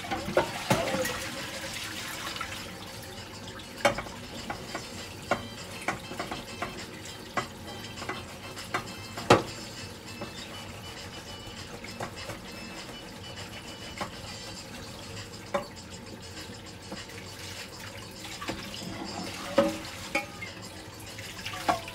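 Kitchen work: a steady hiss with scattered light clicks and knocks of utensils and dishes, the sharpest knock about nine seconds in.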